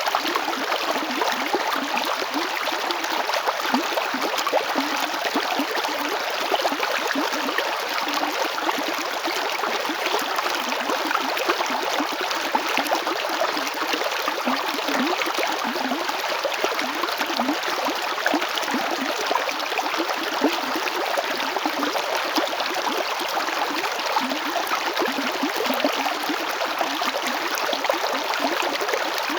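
River water flowing and burbling over stones, a steady rushing with dense small splashes and gurgles that never lets up.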